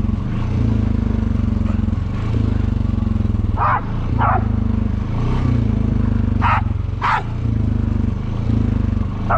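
Honda Foreman 500 ATV's single-cylinder four-stroke engine running steadily under way. A dog barks in two quick pairs, about four and seven seconds in.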